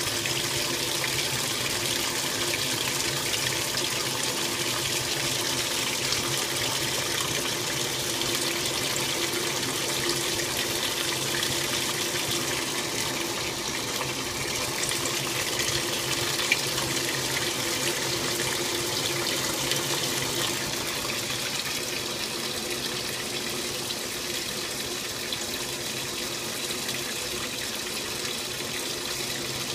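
Old Magic Chef top-load washing machine agitating: water and clothes sloshing and churning around the agitator, under a steady hum.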